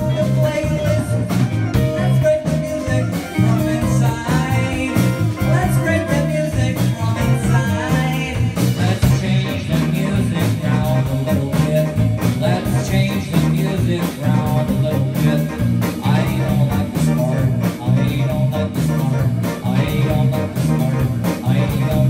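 Live band playing a song: a singer's voice over electric guitars, bass, keyboard and a drum kit, with a steady beat.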